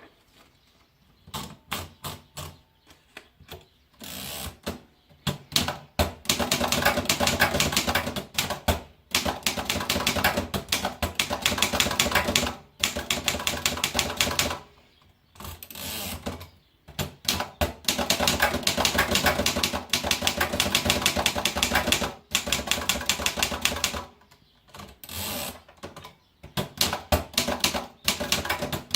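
Typewriter being typed on: fast runs of sharp keystrikes broken by short pauses.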